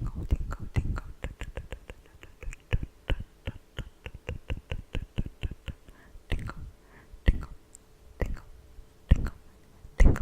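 Close-miked ASMR trigger sounds: a fast run of soft clicks, about four or five a second, then slower, louder single pops about once a second.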